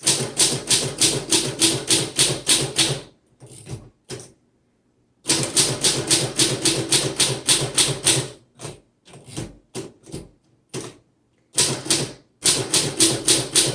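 1935 Underwood Universal portable typewriter being typed on: quick runs of key and typebar strikes, about six a second, broken by a silent pause of about a second near a third of the way in and a stretch of slower, scattered strokes before the last fast run.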